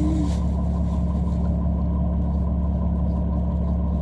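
Steady low drone of a moving vehicle heard from inside the passenger cabin, an even hum with no change in speed.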